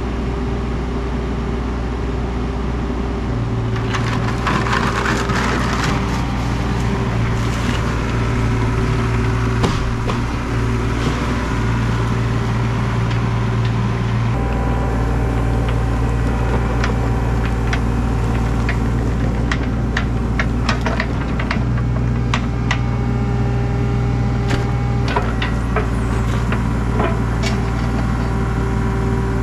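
Excavator engine running steadily under load while digging, its note stepping up and down a few times, with the bucket scraping and many sharp knocks and cracks, more frequent in the second half.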